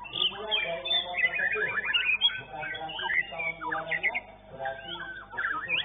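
White-rumped shama (murai batu) singing a fast run of varied whistles, rapid trills and quick rising and falling notes, over the voices of people talking in the background.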